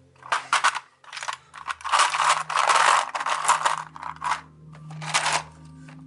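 Plastic Lego minifigures clattering in a clear plastic storage drawer as it is pulled out, tilted and handled, with a dense rattle about two to three seconds in and a few sharper clicks afterwards.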